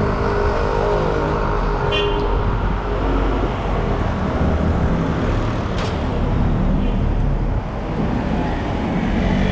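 City street traffic, with a steady low rumble of wind on the microphone as the bicycle moves. There is a brief high-pitched tone about two seconds in and a sharp click near six seconds.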